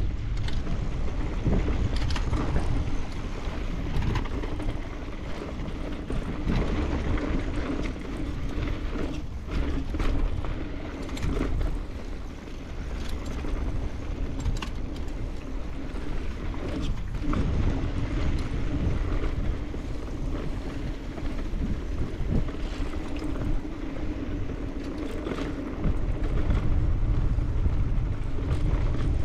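Wind rushing over the camera microphone and the tyres rolling on a dirt trail as a mountain bike, an Evil Insurgent, rides downhill. Frequent knocks and rattles come from the bike running over bumps and rocks.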